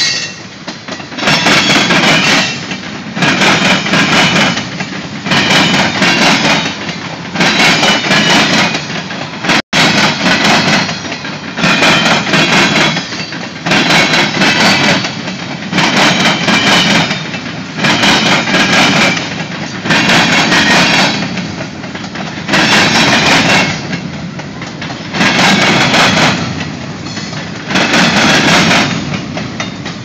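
Freight train rolling past: its wheels clatter over the rails in loud bursts that repeat about every two seconds.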